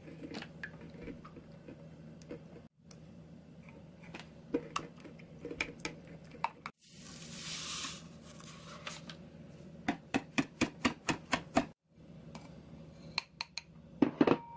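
Batter being mixed in a stainless steel bowl: a spatula stirring, a short hiss of granulated sugar poured in about seven seconds in, then a wire whisk clicking against the bowl about five times a second. Near the end, a few sharp taps of a mesh sieve of flour against the bowl.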